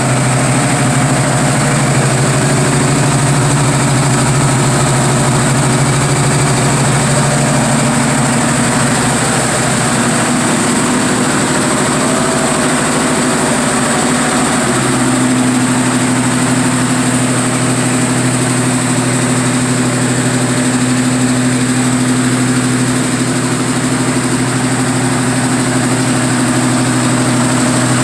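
1970 Ford Mustang Grandé engine idling steadily, its note settling to a slightly different pitch about halfway through.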